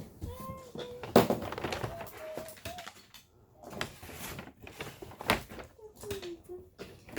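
Toys being handled: a few sharp clacks and knocks, the loudest about a second in, with short bits of a child's voice between them.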